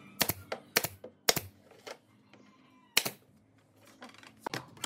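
Nail gun firing nails into pine boards as a dove-house roof is fixed. There are sharp snapping shots, three in quick succession in the first second and a half, another about three seconds in, and a couple of quieter clicks near the end.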